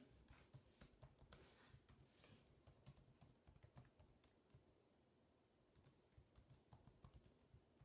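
Faint typing on a late 2006 MacBook's built-in keyboard, keys clicking in quick irregular runs, with a short pause a little past halfway.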